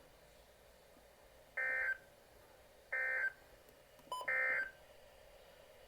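Three short bursts of Emergency Alert System (SAME) data tone from a NOAA Weather Radio, each about a third of a second and about 1.3 s apart. This is the end-of-message signal that closes the severe thunderstorm warning.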